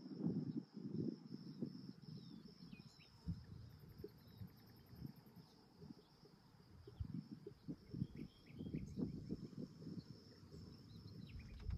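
Outdoor evening ambience: an insect trilling on one steady high note throughout, with a few short bird chirps, over a low, irregular rumble.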